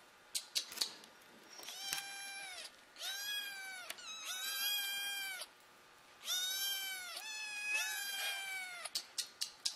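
Kittens meowing: five high-pitched mews in a row, each about a second long and falling slightly at the end, with a few sharp clicks near the start and again near the end.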